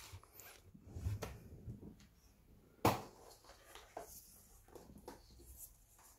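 Faint handling clicks and small knocks as a bicycle pedal is moved about and set up for measuring, with one sharper click nearly three seconds in.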